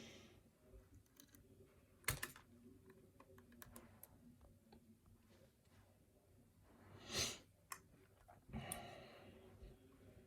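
Faint scattered metal clicks and light scrapes of a lock pick and tension wrench being handled at a brass padlock, with a sharper click about two seconds in and a short louder rush about seven seconds in.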